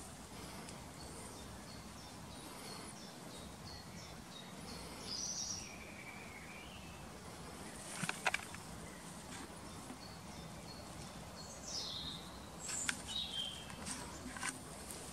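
Small birds chirping and calling in the background over a faint steady outdoor hiss, with a few short sharp clicks about halfway through and again near the end.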